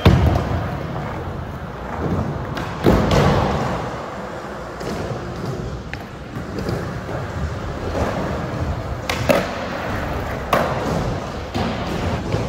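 Skateboard wheels rolling across a smooth indoor skatepark surface, broken by sharp clacks and thuds of the board landing or striking obstacles: one at the start, one about three seconds in, and several more near the end.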